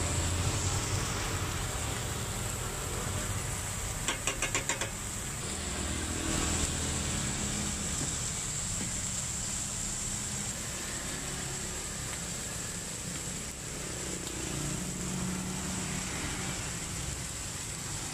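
Beef burger patties sizzling on a flat-top griddle, over steady road traffic with car and motorbike engines passing. A brief rapid rattle about four seconds in.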